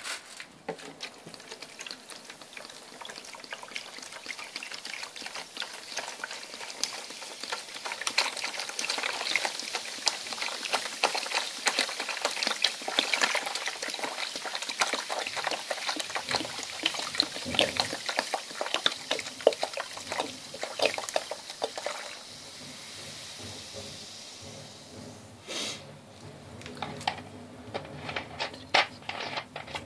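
Coca-Cola glugging and splashing as it is poured from a plastic bottle into a bucket over rusty go-kart steering parts. The pour stops about two-thirds of the way in, leaving a quieter fizzing hiss for a few seconds, then a few knocks near the end.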